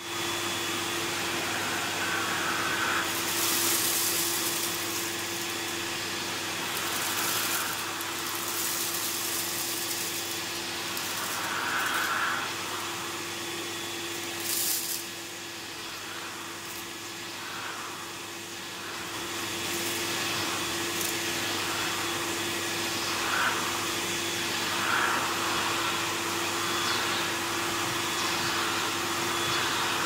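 1987 Hoover Sensotronic S3360 cylinder vacuum cleaner running with a steady motor whine and rush of suction air, its floor nozzle pushed back and forth over carpet so the rush swells and eases every few seconds.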